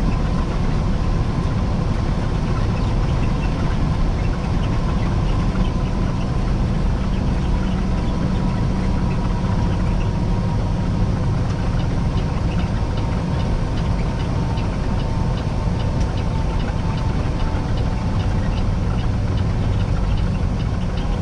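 Peterbilt 389 semi truck's diesel engine and road noise heard from inside the cab while cruising on the highway: a steady low drone. A faint steady whine rides on top and fades out near the end.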